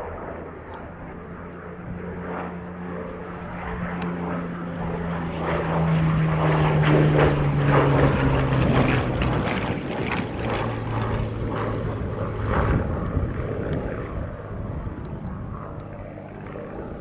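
Propeller-driven aircraft flying past. Its engine note grows louder, peaks about halfway through, then drops in pitch as it passes and fades away.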